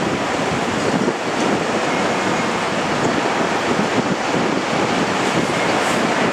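Steady rushing of strong sea wind blowing across the microphone.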